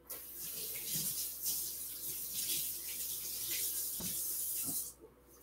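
Kitchen sink tap running as a knife is rinsed under it, water hissing and splashing with a few light knocks. It comes on suddenly and shuts off just under five seconds in.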